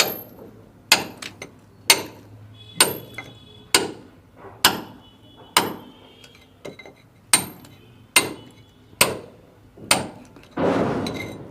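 Hammer blows cutting a channel into a masonry wall by hand, about one sharp, ringing strike a second, eleven in all with a short pause midway. A brief gritty rush of noise follows near the end.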